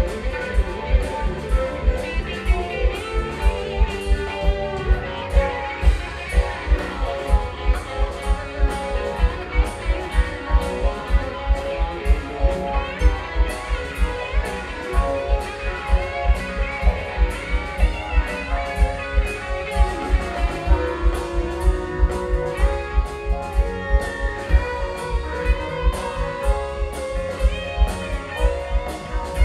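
Progressive rock band playing live: an instrumental passage with violin, electric guitars, bass, keyboards and drum kit over a steady, fast, driving beat.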